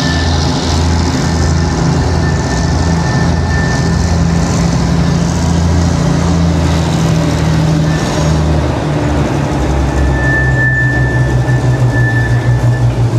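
Arcade & Attica Railroad diesel locomotive running as it slowly pulls a freight train past. Its low engine note shifts partway through, and a thin high tone comes and goes.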